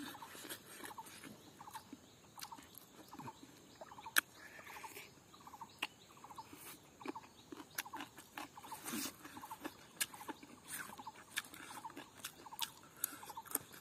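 Close-up mouth sounds of a person eating rice and chicken by hand: chewing with sharp smacks and clicks. Behind them, a short animal call repeats steadily about twice a second.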